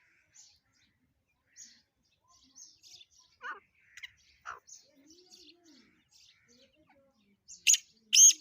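Black francolin calling: faint scattered chirps, then loud, harsh call notes near the end.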